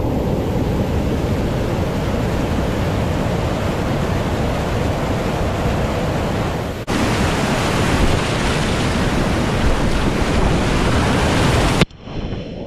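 Steady loud rush of a whitewater creek rapid, churning water pouring over a steep drop. About seven seconds in there is a short break and the rush picks up again; near the end it drops away sharply and turns quieter and muffled.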